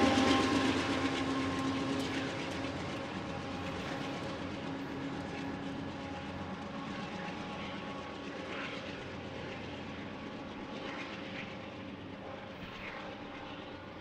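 Diesel freight locomotive running, its engine hum with a few steady pitched tones, loudest at first and fading steadily away. There are a few brief higher sounds near the middle and end.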